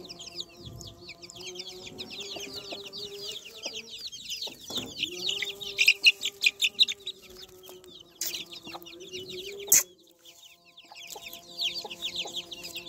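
A flock of chicks peeping continuously: a rapid stream of high, downward-sliding peeps, louder in a burst about six seconds in. Two sharp clicks are heard later on.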